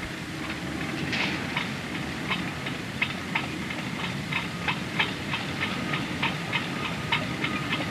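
Chain ferry's machinery running: a steady low rumble with irregular metallic clicks and clanks, about two or three a second, starting about a second in. A faint steady whine joins past the middle.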